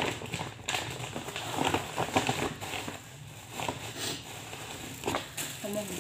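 Plastic bags rustling and crinkling in an irregular run of crackles as hands rummage inside a woven plastic shopping bag and lift out a plastic bag of vegetables.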